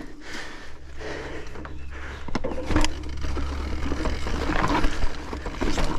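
Mountain bike rolling down a steep rocky trail: tyres grinding over rock and the bike rattling, with a couple of sharp knocks about two and a half to three seconds in, over a steady low rumble.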